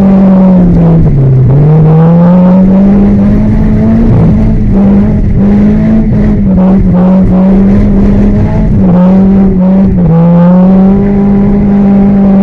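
Car engine running loud and hard under load. Its pitch dips as the throttle is lifted about a second in and again around ten seconds, then climbs back up.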